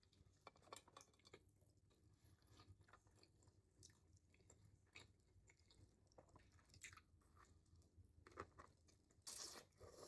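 Faint close-miked chewing of a Sloppy Joe sandwich, with scattered small wet clicks and mouth sounds. A brief louder noise comes near the end.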